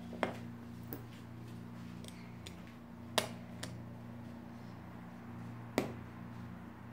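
Small plastic Lego pieces clicking as they are handled and fitted: three sharp clicks a few seconds apart, with a couple of fainter ticks between them, over a steady low hum.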